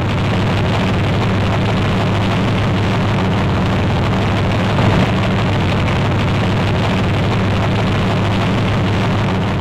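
A race car engine running at steady high revs, with a strong low note throughout and a brief louder moment about halfway through. It fades in and fades out.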